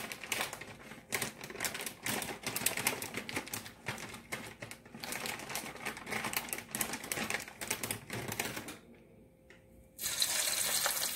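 Hot frying oil in a pot crackling and popping with many small irregular clicks. Near the end, after a brief lull, a steady sizzle starts as the first fries go into the oil.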